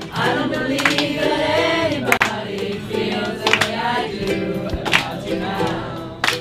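Several voices singing a song together, with a sharp beat about every second and a half.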